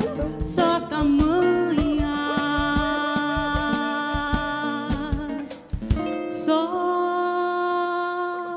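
A woman singing long held notes over acoustic guitar and samba percussion, live. The percussion stops about six seconds in and she holds one final sustained note, the close of the song.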